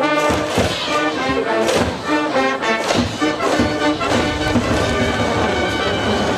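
A high school brass band in the stands playing an up-tempo baseball cheering tune: brass melody over steady drum beats.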